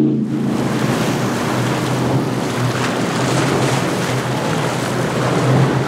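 Hydra-Sports center-console boat with four Yamaha outboards running past at speed: a loud, steady rush of hull spray and water, with the outboards' low drone underneath that grows plainer near the end.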